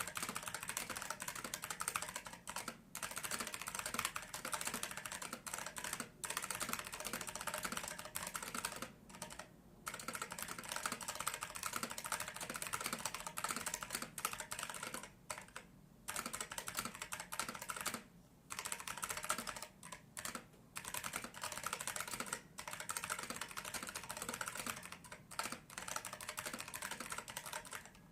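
Typing on an Epson Q303A keyboard with Fujitsu lever action switches: a dense, continuous run of key clicks with a few brief pauses.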